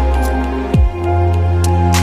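Calm new-age style synth music: sustained chords over a deep bass, with a single deep falling thump like a synth kick drum about a second in.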